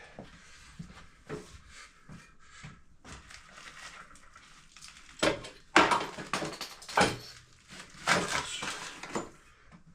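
Metal clunks, knocks and scraping as a QS138 70H V3 electric motor is worked into a dirt bike's frame, with a run of louder knocks in the second half.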